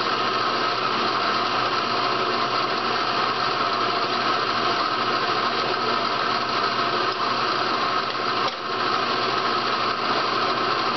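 Electric drill running steadily as its bit cuts lead out of a grand piano key's lead weight, with a brief dip about eight and a half seconds in.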